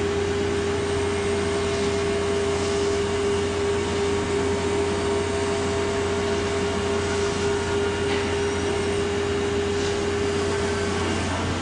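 Hartford CNC machining center running with its spindle cutting into a workpiece: a steady whine over a low hum and a hiss of machine noise, the whine stopping near the end.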